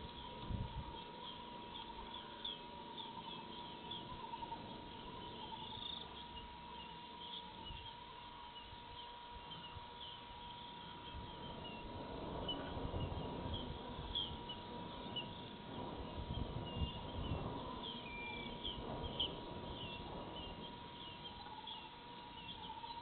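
Outdoor dusk ambience of insects and birds calling: many short high chirps over a steady high tone, with a low rumbling noise that swells in the middle and a soft low thump near the start.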